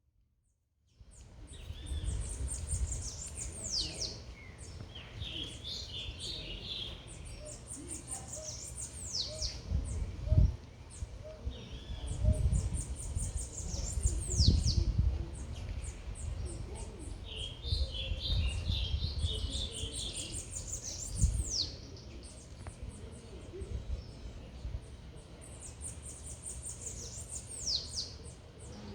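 Birds singing: one song of quick high notes ending in a steeply falling whistle, repeated every five or six seconds, with bursts of twittering from another bird between. A low rumble under the song swells several times.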